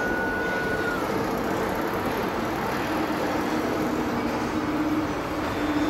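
Steady running noise of a model railway layout with a model train moving along its track, over a continuous hall background with a few faint held tones.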